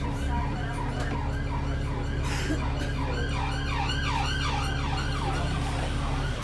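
Emergency-vehicle siren in a fast rising-and-falling yelp, about three cycles a second, muffled as heard from inside a bus over the steady drone of the bus's engine; the siren grows louder in the middle and fades near the end.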